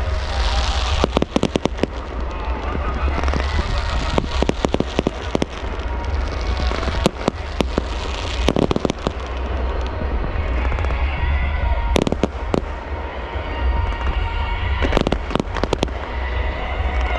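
Fireworks display: a long run of sharp bangs and crackling reports, some single and some in quick clusters, over a continuous hiss and rumble, with music playing in the background.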